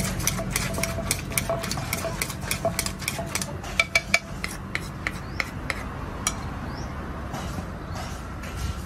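Wooden pestle knocking in a clay mortar while papaya salad is pounded and tossed with a spoon: quick, uneven knocks, about four a second. The knocks thin out about six seconds in.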